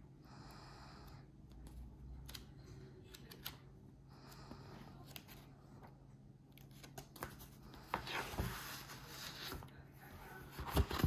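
Scattered clicks and rustling from items being handled, louder and busier near the end, over a steady low hum.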